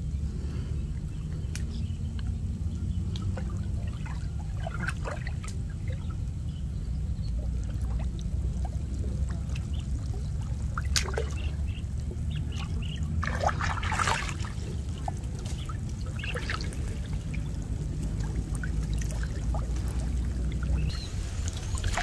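Water sloshing and dripping around a person wading chest-deep and lifting a gill net, with scattered small splashes and one busier splash a little past the middle, over a low steady rumble.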